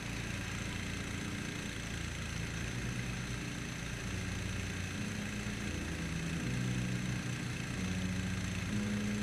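Small boat's motor running steadily as the canoe moves across calm water.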